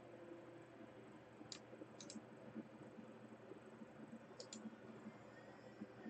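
Faint computer mouse clicks against near silence: a few short clicks, some in quick pairs, spaced a second or two apart.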